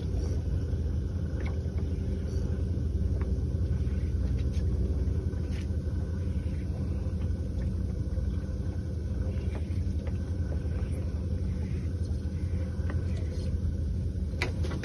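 Fishing boat's engine running steadily, a low even rumble, with a few faint knocks over it.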